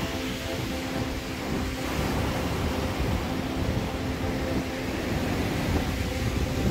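Wind buffeting the microphone over the wash of surf breaking against the pier, with a faint steady hum underneath.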